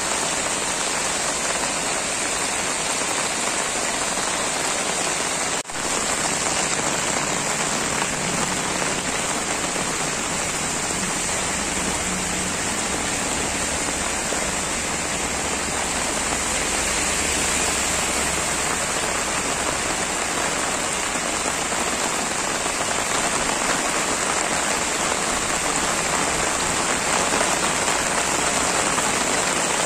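Heavy rain falling steadily on the road and flooded ground: a dense, unbroken hiss.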